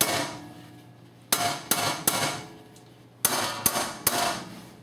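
Small hammer striking the lip of a rusted-in steel axle seal in a Ford 7.5-inch rear axle tube, to loosen it. The sharp metallic clangs come in quick groups of three, about seven in all, and each rings out briefly.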